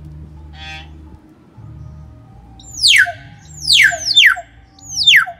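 Young hill myna (beo giras) calling: a short, harsh note about half a second in, then four loud whistles in the second half, each sweeping sharply down in pitch.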